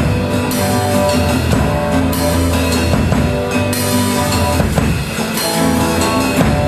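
Live praise band playing a rock-style worship song on guitars and drum kit.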